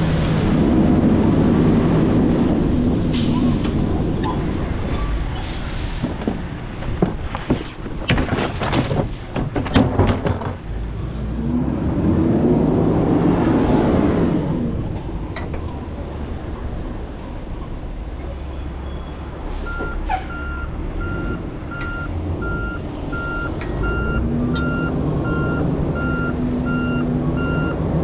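Garbage truck engine running and revving, with short hisses of air brakes and a spell of clattering and banging a third of the way in. From about two thirds in, the reversing alarm beeps about once a second.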